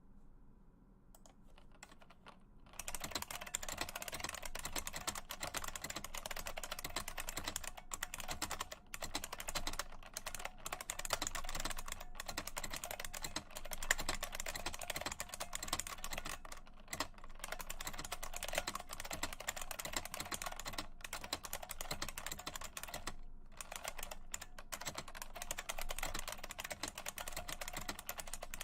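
Typing on a 1987 IBM Model M Space Saving Keyboard: rapid, continuous clacking of its buckling-spring key switches, starting in earnest about three seconds in, with a few brief pauses.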